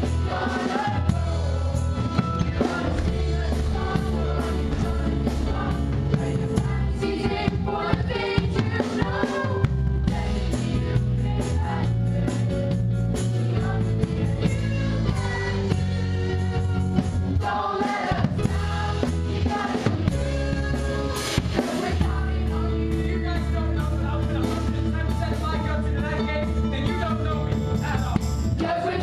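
Live musical-theatre pit band, with bass and keyboard, playing a show song while the cast sings.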